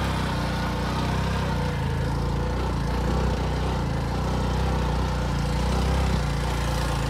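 Single-cylinder engine of a TVS motorcycle running steadily as it is ridden off-road along a sandy dirt track.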